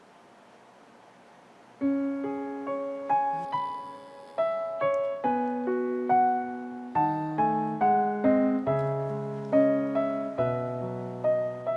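Solo piano playing a slow, gentle melody over chords. The notes come in about two seconds in, after a quiet moment.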